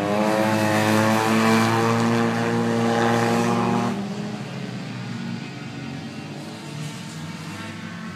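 A sport motorcycle's engine running at high revs as the bike passes on the track, holding a steady pitch for about four seconds, then dropping away sharply. A fainter engine keeps running afterwards, rising slightly near the end.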